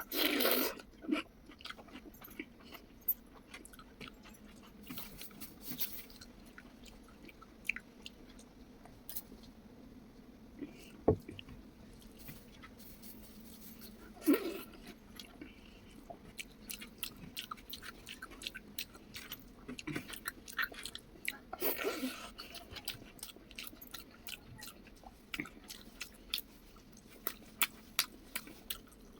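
Close-up chewing and mouth sounds of someone eating rice with spicy chicken liver and gizzard: steady wet chewing with many small smacking clicks, and a few louder bursts at the start, about halfway through and again a little later.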